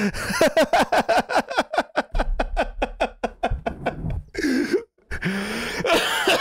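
A man laughing hard into a close microphone: a fast run of short ha-ha pulses for about three and a half seconds, then a high gasp and breathy, wheezing laughter near the end.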